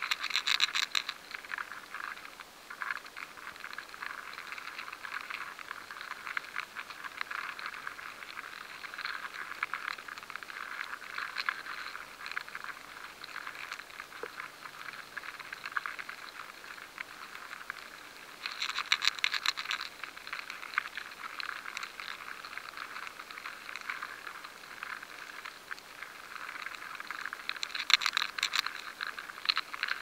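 Grain weevil larvae (Sitophilus granarius) feeding inside grains of rye, picked up by a high-sensitivity vibration recording: a dense, irregular crackle of tiny clicks and scratches. Denser flurries of clicking come near the start, about two-thirds of the way in, and near the end. This activity of the hidden larvae is the sign that the grain is infested.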